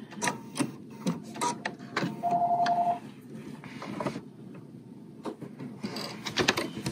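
Small clicks and taps of hands handling the presser foot and thread on a computerised BERNINA sewing machine, with one short electronic beep from the machine about two seconds in.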